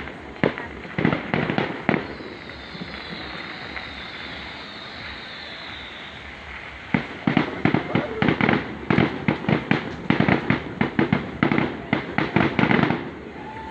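Fireworks going off in rapid bangs and crackles. A few come in the first two seconds, then a dense volley starts about seven seconds in and stops suddenly just before the end. Between the two, a high whistle slowly falls in pitch.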